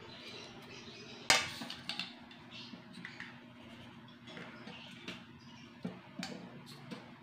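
Light clicks and knocks of bamboo-stick Styrofoam floats being set down and shifted on a tabletop, with one sharper knock about a second in.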